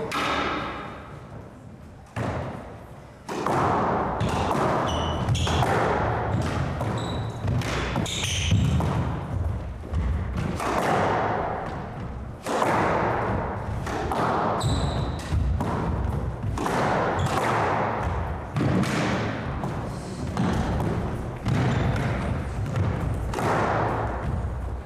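A squash rally: the hard rubber ball cracking off rackets and the court walls in an irregular run of sharp hits, about one every second, starting about two seconds in, with short squeaks of shoes on the hardwood floor between them.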